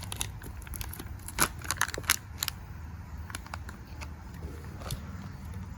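Scattered sharp clicks and crinkles of an MRE's plastic food packaging being handled and opened, over a steady low hum.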